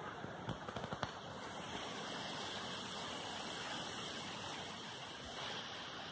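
Steady rushing of wind outdoors, brighter for a few seconds in the middle, with a few light clicks in the first second.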